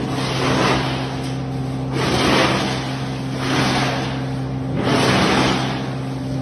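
Wood chipper running with a steady engine hum, overlaid by repeated surges of rushing, shredding noise about every one and a half seconds as wood goes through the chipper.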